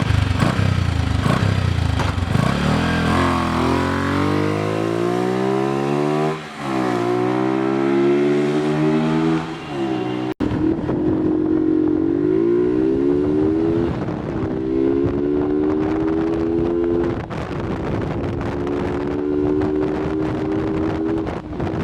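Bajaj Pulsar 150 motorcycle's single-cylinder engine, fitted with a K&N open cone air filter, running under throttle. Its pitch climbs slowly and then drops, again and again, about six times, and the sound breaks off abruptly about ten seconds in before picking up again.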